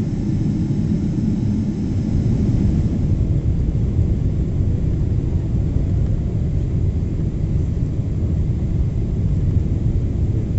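Steady low rumble of a Boeing 777-300's engines and rushing airflow, heard from inside the passenger cabin on descent. A faint high whine drops away about three seconds in.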